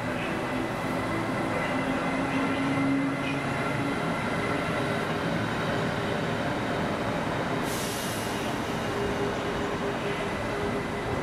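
Siemens Vectron electric locomotives running through a station: a steady electric whine over the rumble of wheels on rail. Partway through a second Vectron is heard approaching, its whine steady at a different pitch.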